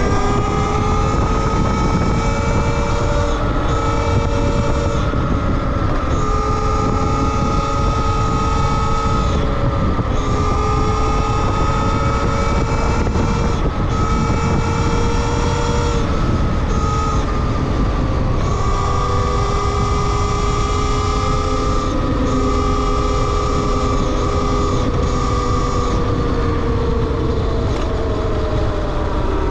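Talaria Sting R MX4 electric dirt bike's motor whining while riding, over a steady low rush. The whine rises in pitch as it speeds up at the start, holds fairly steady with small dips, and falls away near the end as it slows.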